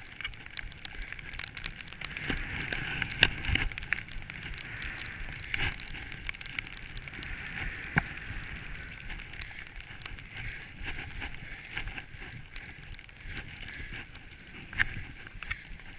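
Skis hissing steadily through deep powder snow, with a few sharp knocks about three seconds in, eight seconds in and near the end.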